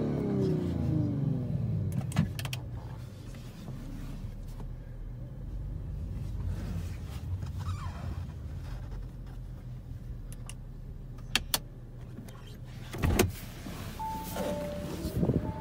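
Audi RS5 Sportback's twin-turbo V6 dropping back from a rev in the first two seconds, then idling steadily in park. A few sharp clicks and a knock come in the second half, and short electronic beeps sound near the end.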